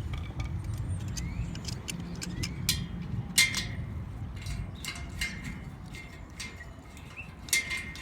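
Irregular metallic clicks and clinks of hands working on the motor's limit-switch magnets while they are being swapped, sharpest about three and a half seconds in and near the end, over a steady low rumble.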